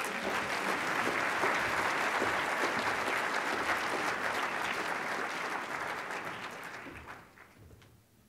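Audience applauding steadily, the clapping dying away about seven seconds in.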